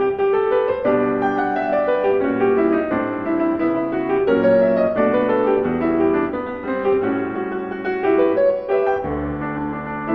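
Background piano music: a gentle, flowing melody of single notes and chords.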